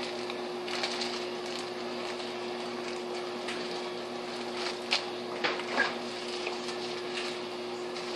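A steady kitchen appliance hum, with a few light clicks and rustles of handled plastic packaging about five to six seconds in.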